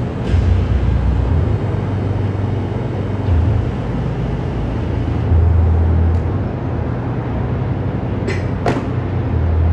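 Steady low rumbling background noise, with two sharp knocks less than half a second apart near the end.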